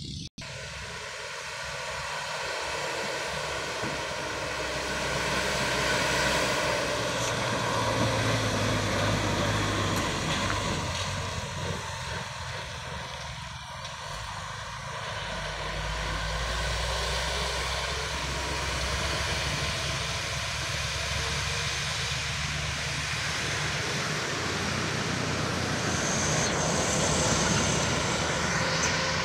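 Loaded sugarcane trucks' diesel engines running at full throttle as they climb a steep bend, a steady labouring drone that swells as each truck passes close by.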